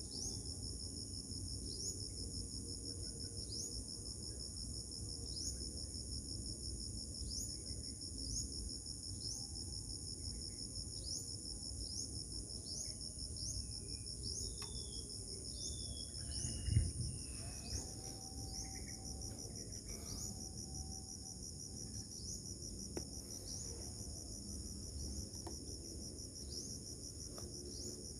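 Insects trilling steadily in two high-pitched bands, with a short rising chirp repeating about once a second and a few faint whistled notes. A single low thump comes about seventeen seconds in.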